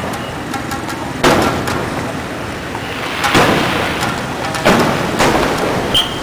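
Aerial fireworks shells bursting: five sharp booms, each dying away over about a second, the last three coming close together near the end.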